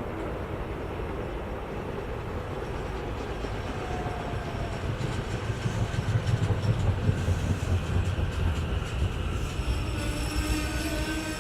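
SEPTA Regional Rail electric train running on the rails, its wheels clattering over the track and getting louder in the middle as it goes by. Thin high-pitched tones come in near the end.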